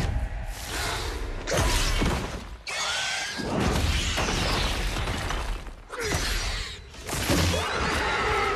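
Fantasy film battle sound effects: a run of sudden metallic clashes, crashes and whooshes, a heavy hit every second or so, as armoured wraiths are fought off.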